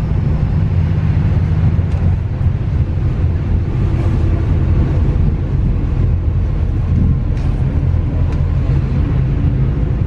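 MAZ-206 city bus driving between stops, heard from inside the passenger cabin: a steady low engine and road rumble with a few faint rattles.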